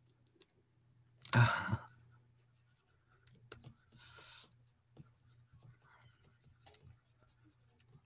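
Pen stylus faintly scratching and tapping on a graphics tablet, over a low steady hum. A short loud rush of noise comes about a second in, and a softer one around four seconds.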